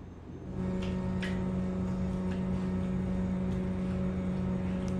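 A steady low mechanical hum starts about half a second in and holds one pitch, over a low rumble. A few light clicks come from a spider conch shell being handled and picked at.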